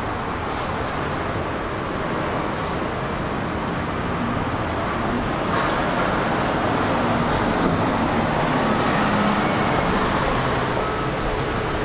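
Steady city road traffic: cars and other vehicles passing in a continuous wash, growing a little louder about halfway through.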